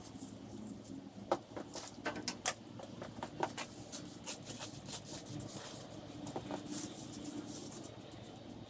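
Scattered light clicks and knocks at an uneven pace, the sharpest about a second and two and a half seconds in, over a steady low hum.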